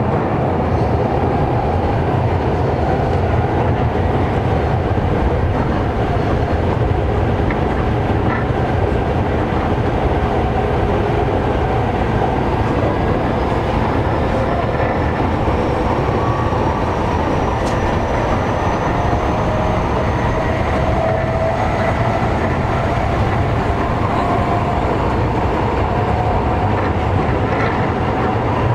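Running sound of a Toei 10-300 series subway train (4th batch), heard from inside the car while it travels between stations: a steady rumble of wheels on rail, with a faint motor whine that slowly rises in pitch through the second half.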